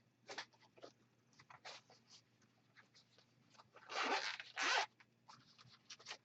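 Handling noise from unpacking small recorder accessories: scattered short rustles and scrapes, with two louder sweeping strokes of about half a second each about four seconds in.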